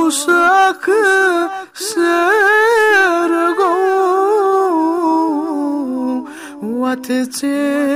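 Male voice singing a Kashmiri nazm without instruments: one melodic line of ornamented, wavering held notes, with short breaks between phrases.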